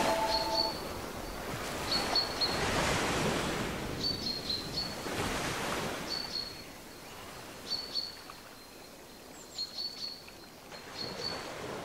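Waves washing, rising and falling twice in the first half, with a small bird giving short, high, repeated chirps about once every second or so.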